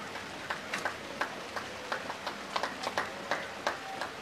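Steady rain hiss with irregular sharp taps, several a second, standing out above it.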